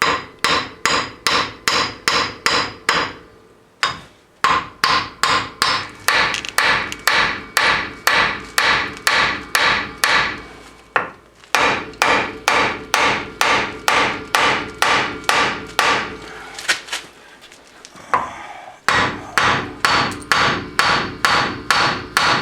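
Hammer repeatedly striking metal, about three ringing blows a second in runs broken by brief pauses, knocking apart the front axle joint on a Ford Ranger after its bolts are removed.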